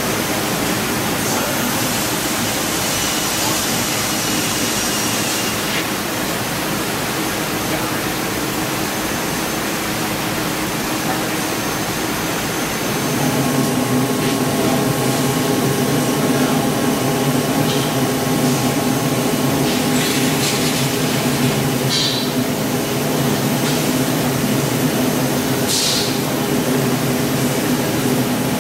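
Mazak Super Turbo X44 CNC laser cutter running: a steady machine hiss, joined about halfway through by a louder hum made of several steady tones. A few short hisses come near the end.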